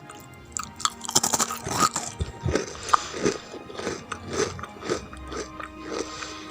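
A crunchy brownie crisp bitten into with a crackling snap about a second in, then chewed with a crunch roughly twice a second. Background music plays underneath.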